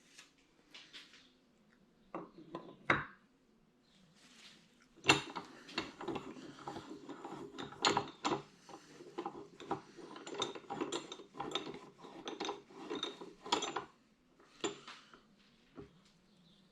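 Steel parts and tools clinking and rattling against each other as a workpiece is set up in a milling machine vise: a few sharp knocks about two seconds in, then a long run of quick, irregular clinks.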